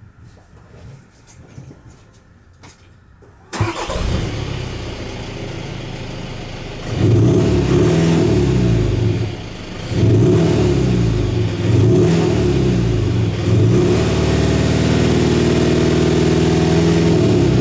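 VW Golf Mk7 GTD's 2.0-litre four-cylinder turbodiesel starting about three and a half seconds in and idling, heard through a Milltek sport rear exhaust in normal mode with the artificial sound actuator off. It is then revved up and down three times and held at a steady higher rev near the end.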